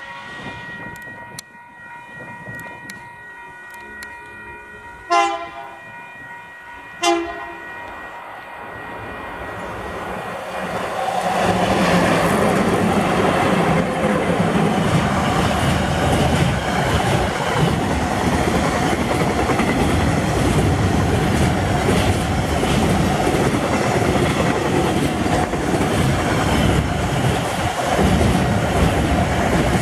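Freight train hauled by three EF-class electric locomotives. It sounds its horn in two short blasts about two seconds apart as it approaches, then passes close by at speed, loud and steady, with the wheels clattering as the wagons roll past.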